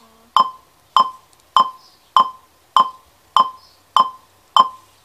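DirecTV satellite receiver's signal-strength indicator beeping: short, identical beeps evenly spaced, a little under two a second. This is the dish-pointing tone, which grows more intense as the signal improves.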